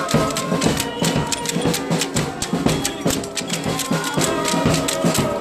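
Music with dense, fast percussion: many quick sharp strikes of drums and wooden clappers in a steady rhythm, with some held tones over them.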